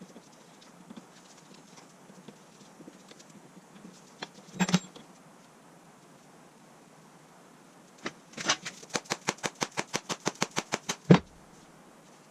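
Workshop knocks and clicks at a hammer press: a single sharp knock, then after a pause a fast, even run of sharp clicks, about ten a second for some three seconds, ending in a louder knock.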